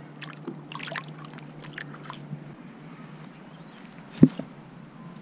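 Small water splashes and drips as a bream is let go over the side of a kayak, with light clicks and a low steady hum. A single sharp knock about four seconds in, the loudest sound.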